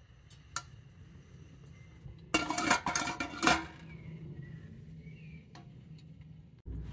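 Metal cookware and utensils clattering: a quick run of clinks and knocks about two and a half seconds in, lasting about a second, with single light clicks before and after. A steady low rumble starts abruptly just before the end.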